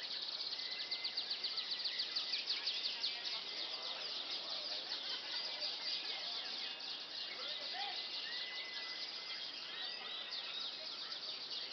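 Canary singing a long, unbroken song of fast trills with several held whistled notes, the trilling loudest in the first few seconds.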